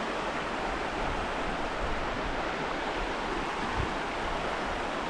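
Steady rushing of a mountain creek's running water.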